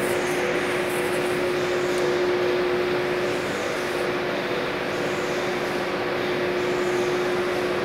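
Machinery in a plastic woven bag factory running steadily: an even mechanical noise with a constant hum through it.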